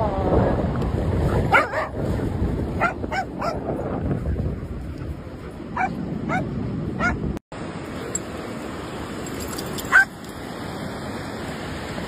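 Dogs yipping and barking in play, short high calls in small runs of two or three, over steady wind and surf noise.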